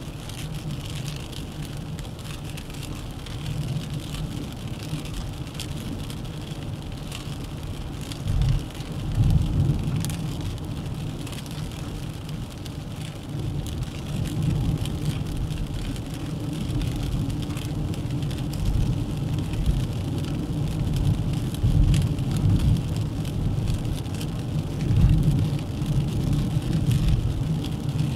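Dacia Duster 1.3 TCe 4x4 driving on the road: steady tyre and wind noise with gusty low rumbles that swell and fade, plus scattered light ticks.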